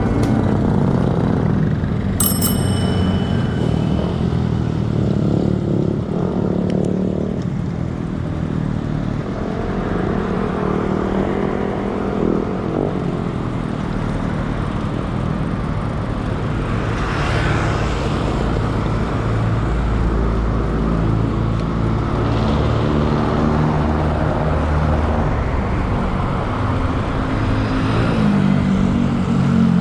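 Street traffic heard from a moving bicycle: motor vehicles and motorcycles running and passing, with their engine hum rising and falling. A bicycle bell rings once about two seconds in.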